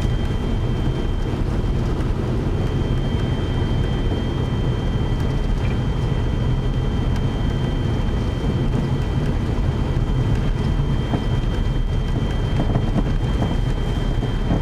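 Steady low rumble of a car driving on a snow-covered road, heard from inside the cabin, with a faint steady high whine.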